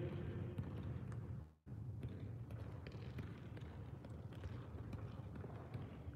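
Faint, scattered taps of a soccer ball being dribbled with quick touches on artificial turf, over a steady low hum of the hall. The sound drops out completely for a moment about a second and a half in.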